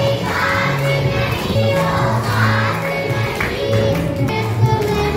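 Devotional bhajan music: a group of voices singing over held instrumental notes.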